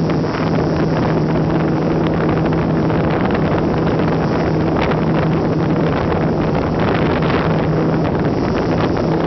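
Onboard audio of an electric RC airplane in flight: its brushless motors and propellers humming at a steady pitch, with wind rushing over the microphone.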